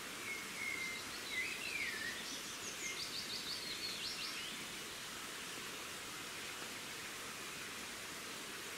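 A songbird sings a run of short whistled phrases: a held note, a swooping note, then quick stuttering trills, ending about four and a half seconds in. A steady outdoor hiss runs beneath it.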